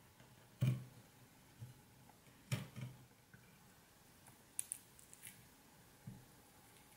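A kitchen knife cuts through an orange slice and knocks on a wooden cutting board, with a few separate knocks, the strongest under a second in and about two and a half seconds in. Small crisp wet ticks follow around the middle as the cut orange slice and its peel are bent apart by hand.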